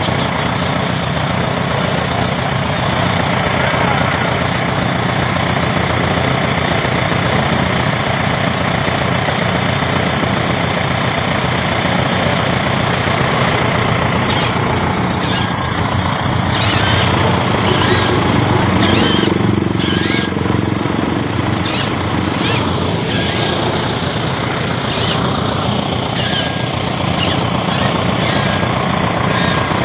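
Radio-controlled model Hitachi excavator working steadily, its machinery giving a constant running noise. From about halfway through, many short sharp hisses come over it.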